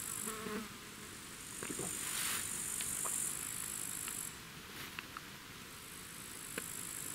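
High-pitched chirring of grassland insects, a steady buzz that breaks off for a couple of seconds past the middle and starts again near the end. Under it come a few faint clicks and gulps from drinking out of a plastic bottle.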